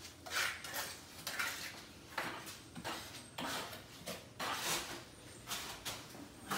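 Short clattering and rustling noises, one or two a second, from items and plastic being handled on a kitchen counter.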